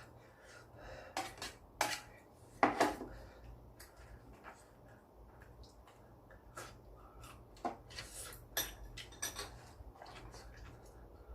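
Eating utensils clinking and scraping against a dish during a noodle meal: a string of irregular sharp clicks, the loudest about three seconds in, with a few more near the end.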